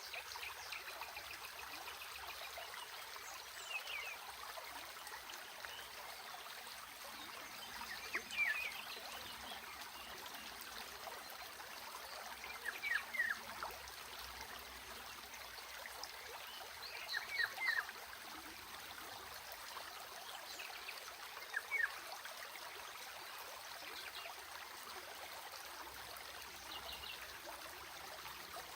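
A stream running and trickling steadily, with short high falling chirps about every four to five seconds standing out above it.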